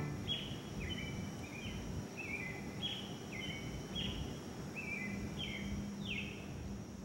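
Bird calling: a run of short chirps, each sliding down in pitch, about two a second, over a faint steady high hiss.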